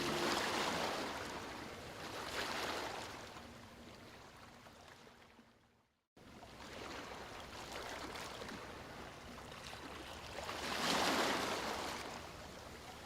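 Sea waves washing in and drawing back in slow surges, swelling near the start, again a couple of seconds later and once more near the end. Around the middle the sound fades away and cuts out to silence for a moment before returning.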